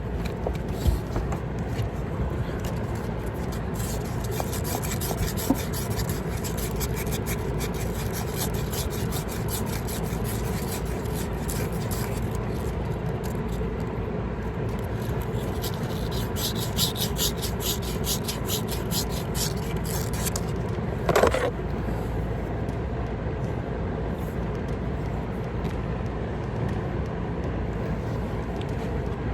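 Brazing torch burning with a steady hiss and rumble as a copper refrigerant line is brazed, crackling at times. A short wavering squeak about three-quarters of the way in.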